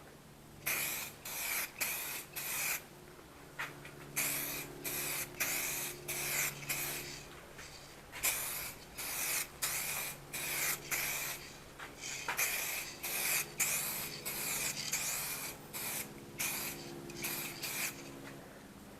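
Aerosol can of 2K clear coat lacquer spraying in many short hissing bursts, about two a second with brief gaps: light passes of a second coat laid over a first coat that has gone tacky.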